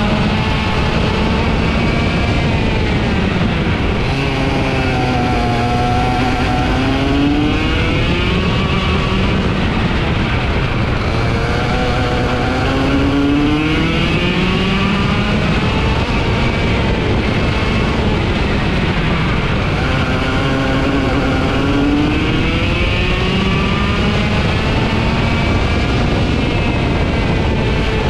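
Racing kart engine heard from on board at speed, its pitch dropping and climbing again several times as the revs fall for corners and rise on the straights.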